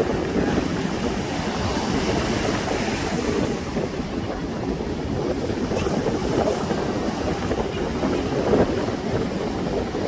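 Ocean surf washing onto a sandy beach in a continuous, even wash, with wind rumbling on the microphone.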